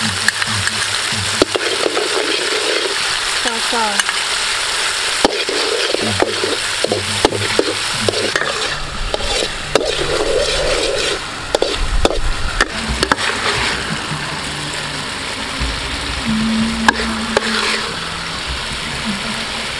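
A chopped chili and garlic mixture sizzling in oil in a steel wok, with a metal spatula stirring and scraping against the pan in frequent sharp clicks.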